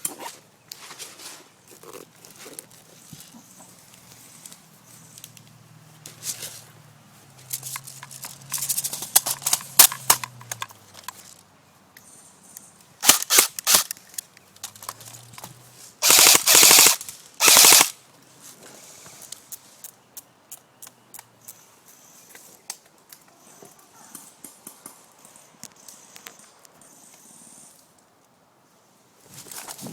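Airsoft guns firing during a game: scattered single shots and rapid strings, then two loud full-auto bursts of about a second each past the middle.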